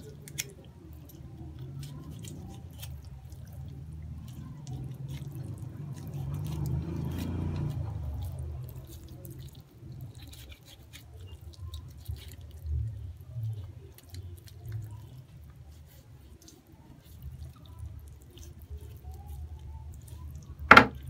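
Large kitchen knife cutting open a raw chicken leg quarter by hand: faint wet squelching of flesh and skin and small scattered clicks over a low rumble that swells for a couple of seconds midway. A single sharp knock near the end as the knife is laid down on the wooden table.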